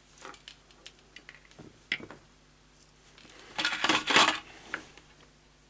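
Small metal tools and wire being handled on a workbench: a few light clicks, then a short rattling clatter about three and a half seconds in.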